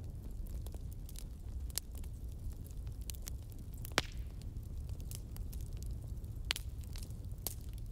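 Fire burning with a steady low rumble and scattered sharp crackles and pops, the loudest pop about four seconds in.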